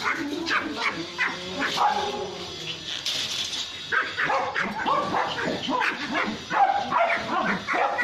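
Several Pomeranian puppies yapping and barking over one another in short, overlapping yaps, busier from about halfway through.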